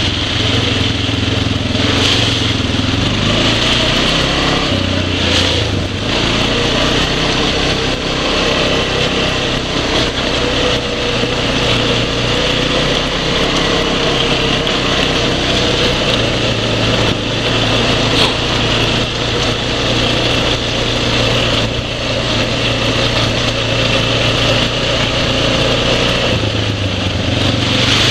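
Single-cylinder four-stroke ATV engine running steadily while riding a trail, picked up close by a goggle-mounted camera, its engine speed shifting a few times with the throttle.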